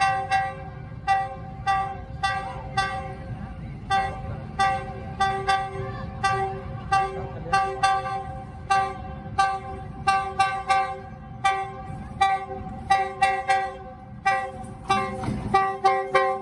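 Locomotive air horn sounding a long series of short toots, each a chord of several tones, in a quick, uneven rhythm. A steady low rumble runs underneath.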